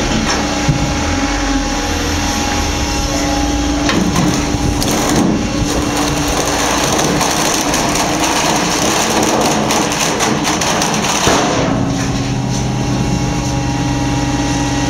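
Hydraulic stone splitting machine pressing its toothed blades into a stone block: a steady pump hum under several seconds of dense crunching and cracking as the stone gives way, ending in a sharp crack, after which the machine hums on more quietly.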